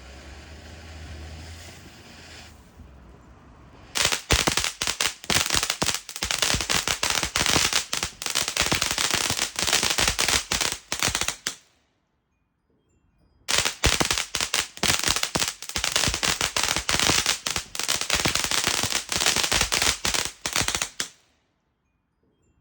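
Firecrackers going off in rapid, crackling strings, dense sharp bangs for about seven seconds at a time. One run starts about four seconds in, breaks off abruptly, and a second run follows after a short silence.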